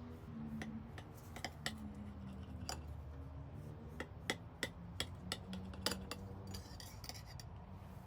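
A string of sharp, irregular clinks of kitchen utensils and dishes, like a spoon or whisk knocking against a glass bowl, bunched mostly in the first six seconds.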